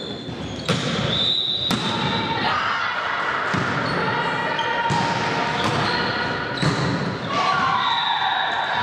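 A volleyball rally in a sports hall: the ball is struck sharply several times, with players' voices echoing around the hall.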